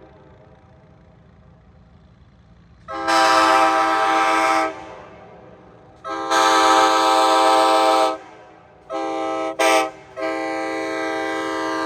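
Nathan Airchime K5LA five-chime air horn on an Amtrak EMD F40PH locomotive, sounding a chord in the long-long-short-long pattern of a grade-crossing signal. There are two long blasts, a quick short one that stutters, then a final long blast that grows louder at the end.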